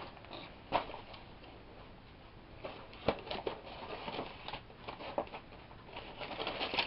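Light handling noises: scattered small clicks and rustles, the sharpest about three seconds in and a busier run near the end.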